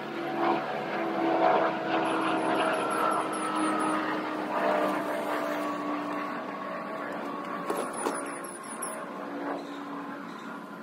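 An engine drones steadily, its pitch sliding slowly downward and growing fainter toward the end. High, quick chirping comes in two short runs, a couple of seconds in and again after about eight seconds.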